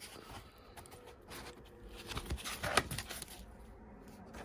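Light handling noise of a boxed die-cast model airliner and its packaging being moved about: scattered soft rustles and clicks, with one sharper click near the three-second mark.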